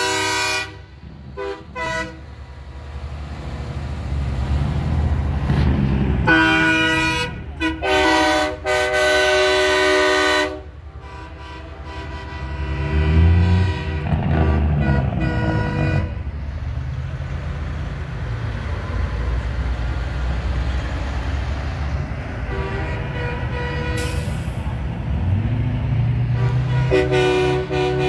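Semi-truck air horns sounding chords of several notes in repeated blasts: a couple of short toots at the start, two long blasts about six to ten seconds in, and more horn later. Underneath is the steady rumble of the passing trucks' diesel engines, which rise in pitch as one accelerates.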